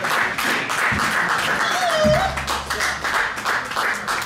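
Audience clapping and talking in a club, the claps dense throughout, with a short gliding call from the crowd about two seconds in.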